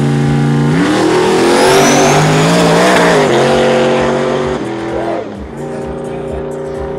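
A C3 Chevrolet Corvette launching hard from the start line, engine running at full throttle with a brief tyre squeal, then fading as the car pulls away down the runway. Background music plays underneath.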